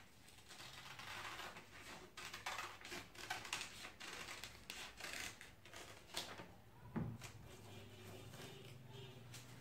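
Scissors snipping through a paper template in a run of short, crisp cuts, then paper rustling as it is laid flat on a foam sheet, with a single knock about seven seconds in.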